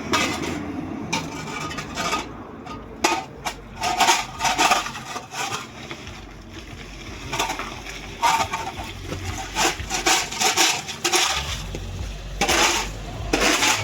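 A person coughing in harsh bursts, several coughing fits a few seconds apart: a smoker's chronic cough.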